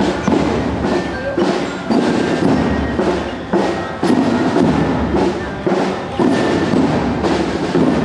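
Marching drum band playing a steady march beat on snare and tenor drums, with a faint bell-like tune over it.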